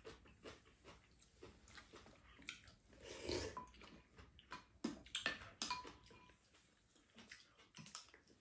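Quiet eating at a table: spoons tapping and scraping against ceramic bowls, a couple of them ringing briefly, with chewing and soup being sipped.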